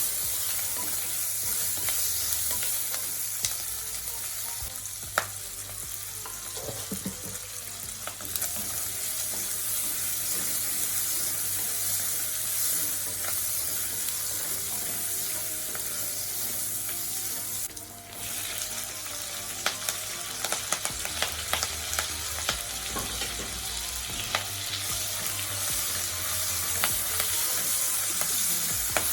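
Food sizzling as it is stir-fried in a pan for pork chow mein, with scattered sharp taps and scrapes of the utensil against the pan. The sizzle drops away briefly about 18 seconds in, then comes back.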